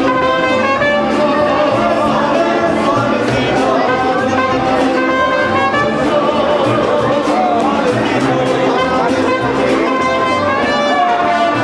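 Mariachi band playing live: trumpets over violin, strummed vihuela and a guitarrón, in a steady rhythm.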